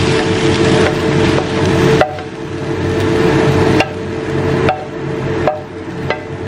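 Wooden spatula scraping stir-fried cabbage and carrot filling out of a wok onto a plate, with several sharp knocks of the spatula against the pan, over a steady hum.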